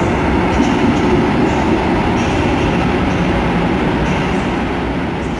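Short passenger train hauled by an EU07-class electric locomotive departing, its coaches' wheels rolling along the track with faint recurring clicks, slowly fading near the end as the train draws away.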